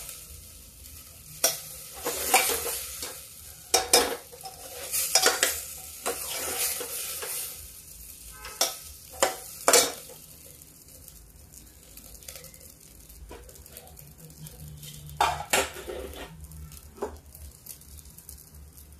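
Slotted metal spoon scraping and clanking against the inside of a pressure cooker as rice is stir-fried in a little oil, over a faint sizzle. The strokes come thick and fast for the first half, then only a few now and then.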